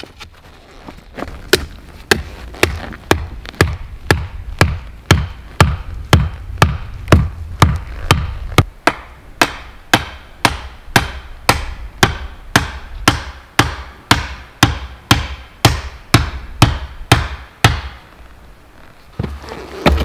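A hand tool striking wood in a steady run of blows, about two a second. The blows start a second or two in and stop near the end.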